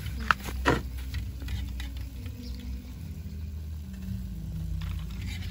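Apple snail shells clicking sharply twice as they are handled and set on a wire grill rack, over a steady low outdoor rumble.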